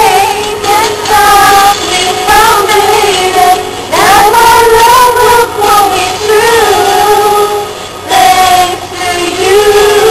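Several women singing a love song together, holding long notes across drawn-out phrases.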